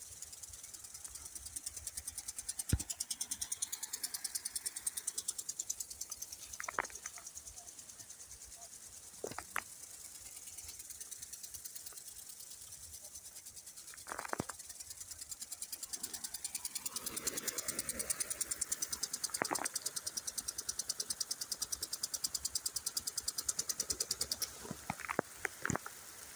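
Mini sprinklers spraying water: a steady high hiss with a rapid flutter, broken by a few short sharp sounds.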